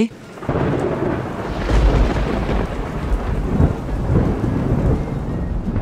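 Thunder rumbling, a recorded thunderstorm sound effect, starting about half a second in.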